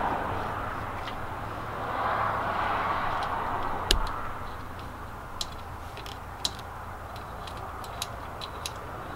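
Plastic wiring connectors clicking and ticking as they are handled and plugged together, with one sharper click about four seconds in and several small ticks after it, over a steady background noise that swells and fades.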